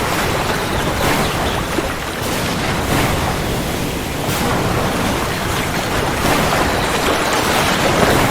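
Heavy rain falling steadily, a dense even hiss, with a low rumble underneath.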